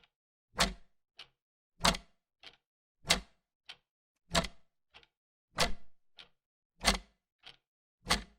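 Grandfather clock ticking in an even rhythm: a loud tick about every one and a quarter seconds, with a much fainter tock halfway between.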